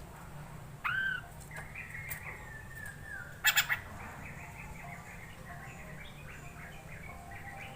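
Poksay mandarin, a laughingthrush, singing a varied song. A loud arching whistled note comes about a second in, then gliding notes, three sharp loud notes about halfway through, and a long run of quick chattering notes, over a steady low hum.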